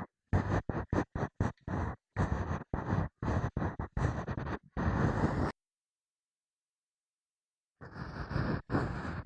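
Ear-pick (mimikaki) scraping and rubbing: a quick run of short scratchy strokes, then about two seconds of dead silence, then longer scraping strokes start again near the end.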